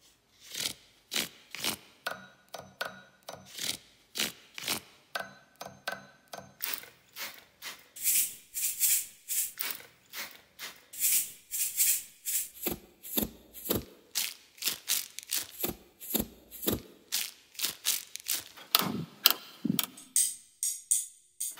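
Percussion music played on everyday household objects, among them book spines brushed by a hand and a metal cookie cutter flicked with a finger: a steady beat of clicks and taps about two a second, with brief ringing tones a few seconds in.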